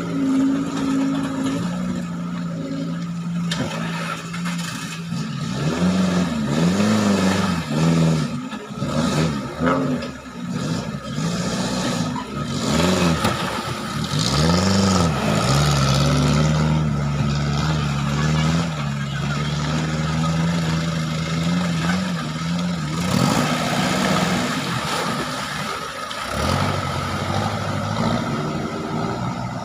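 Engines of Suzuki Jimny off-road 4x4s revving as they drive one after another through a shallow river, the pitch rising and falling repeatedly and then holding steady for several seconds, with water churning around the wheels.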